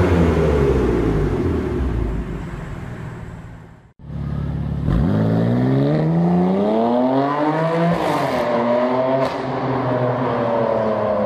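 BMW M4 F82's twin-turbo straight-six exhaust: the revs fall away and fade after a blip for about four seconds, then after a sudden cut the car pulls away hard, the pitch climbing steeply, dropping at an upshift about eight seconds in and climbing again before easing off near the end.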